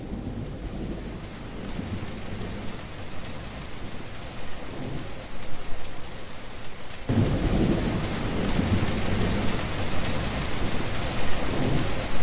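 Thunderstorm: heavy rain falling with rolling thunder. The storm steps up suddenly about seven seconds in, with a louder, deeper rumble, then cuts off abruptly at the end.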